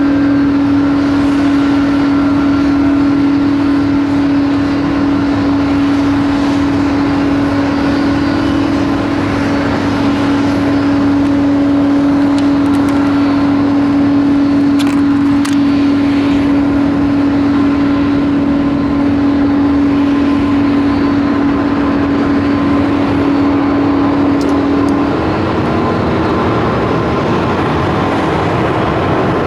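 Jet airliner engines running on the ground: a loud, steady noise with a strong, even hum that dips slightly about 25 seconds in.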